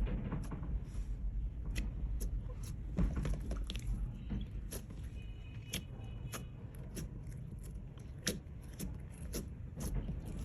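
Hands squishing and stretching glossy clear slime, with many irregular sharp clicks and pops over a low rumble.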